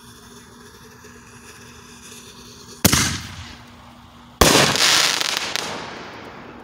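Crackling artillery-shell firework: the lift charge fires the shell out of its mortar tube with a bang about three seconds in. About a second and a half later the shell bursts with a louder bang, followed by a dense crackle that fades away over about two seconds.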